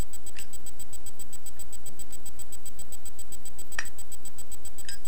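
Zippo lighter clicking three times, a short metallic clack each, as the lid is flipped open and snapped shut during tricks, over a steady low hum.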